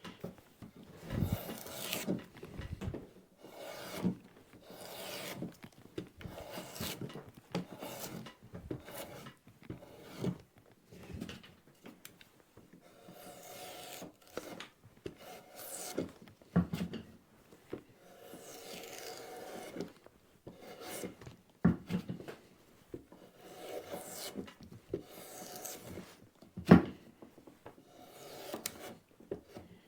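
Drawknife pulled along a wooden branch leg, stripping off the bark in repeated scraping strokes, one every second or two. A few sharp knocks come between strokes, the loudest near the end.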